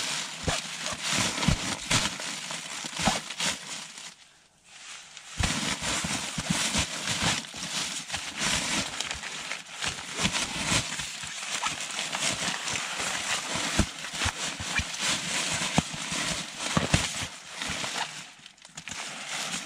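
Western Mountaineering Bison sleeping bag being handled: dense, irregular rustling and crinkling of its nylon shell, with a brief pause about four seconds in and a short dip near the end.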